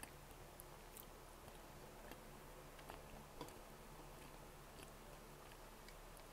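Faint, soft chewing of a Mister Donut strawberry-milk donut close to the microphone, with a few small mouth clicks about 1, 3 and 3.5 seconds in.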